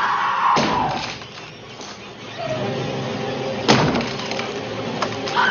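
Harsh noise passage of a goregrind/noise recording: a dense hiss with sharp crashing, breaking-glass-like impacts about half a second in and again near four and five seconds in, and a wavering high cry-like glide at the start and again at the end.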